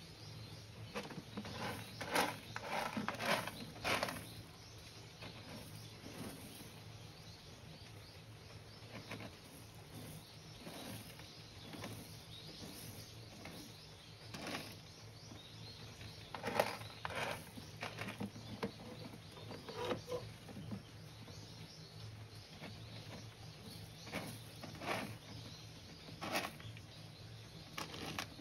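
A cat scratching and digging in pellet cat litter inside a plastic litter box, in irregular bursts of gritty rustling, covering its droppings after using the box.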